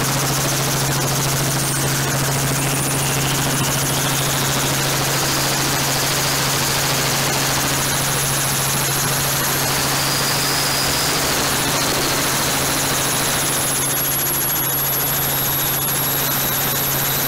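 Helicopter in flight: a steady, loud drone of rotor chop and engine, with a faint high whine that grows and rises slightly in the second half.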